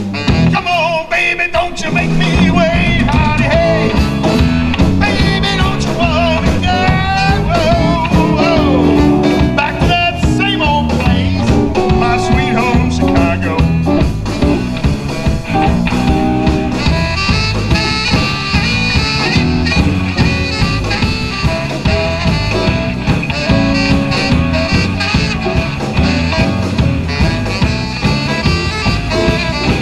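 Live blues band playing amplified music: electric guitars, bass guitar, drums and saxophone over a steady beat.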